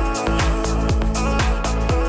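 Electronic dance music with a steady driving beat: punchy kick drums, hi-hat hits and sustained synth chords.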